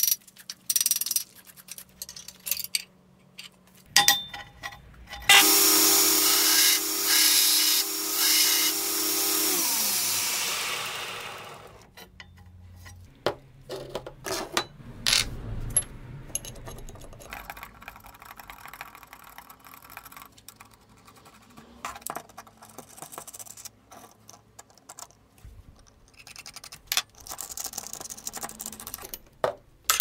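Steel parts clank and knock in a workshop. About five seconds in, a power tool starts and runs for about five seconds with a loud hissing grind over a steady hum. It then winds down with a falling pitch, and small clicks and taps of metal parts being handled follow.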